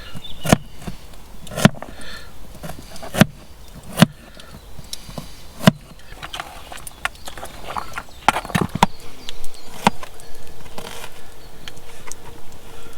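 Knife cutting vegetables by hand: a series of sharp, irregular knocks as the blade goes through and strikes, with short pauses between cuts and a quicker run of cuts later on.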